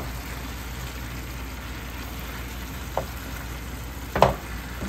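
Diced zucchini and tomatoes with garlic sizzling in oil in a nonstick frying pan, stirred with a silicone spatula, over a steady low hum. A brief knock comes about three seconds in, and a louder clatter just after four seconds.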